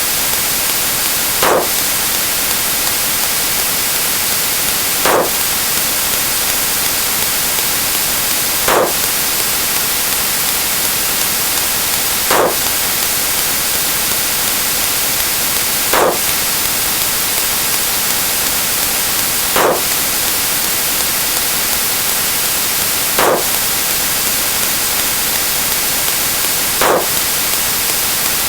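Loud, steady static hiss, with a short blip repeating about every three and a half seconds, eight times in all.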